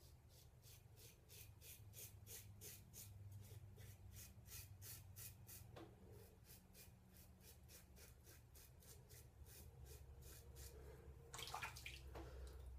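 Open-comb Gillette Old Type safety razor scraping lathered stubble on the neck in short, quick strokes, about three a second, on an against-the-grain pass; faint. A louder brief rustle near the end.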